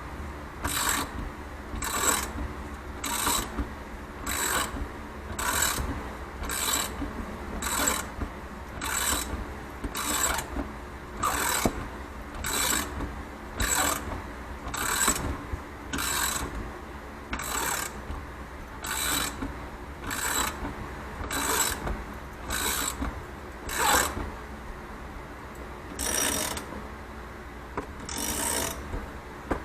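Ratchet wrench cranking the threaded screw of a motorcycle spring compressor on an ATV coil-over shock spring: short ratcheting strokes, about one a second, with a brief pause near the end.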